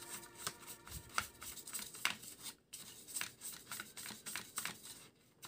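A small bristle brush scrubbing over the inside of a plastic money-detector housing, making a rapid series of short scratchy strokes with a brief pause about two and a half seconds in.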